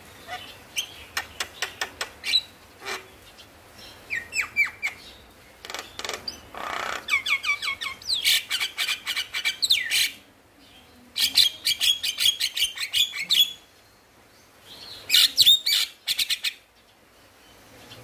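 Male Javan myna singing: bursts of rapid, repeated sharp notes and whistles, broken by short pauses. The longest and loudest run is in the middle, and another loud run comes near the end.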